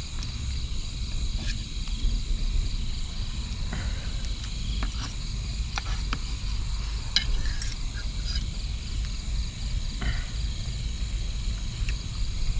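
Night insects such as crickets trilling steadily at a high pitch, with a few short clicks of spoons on plates, over a steady low rumble.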